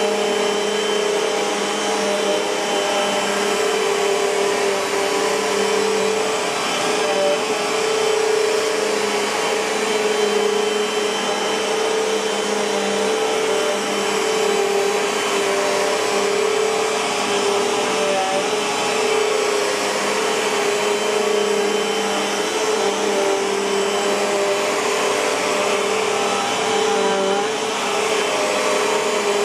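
Bissell PowerForce Compact bagless upright vacuum cleaner running steadily: a rush of air with a constant motor tone, and a fainter lower tone that comes and goes.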